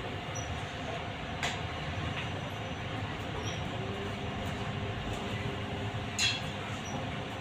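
Cabin noise inside a moving electric trolleybus: a steady rumble from the tyres and body, with a faint whine about halfway through and a few sharp rattles and clinks of the fittings, the loudest about six seconds in.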